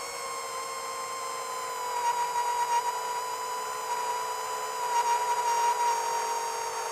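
Quadcopter's four brushless motors (Racerstar 2514 1498KV) spinning 7-inch HQProp 7040 propellers, a steady whine that sinks slightly in pitch; it grows louder and wavers from about two seconds in as the throttle changes.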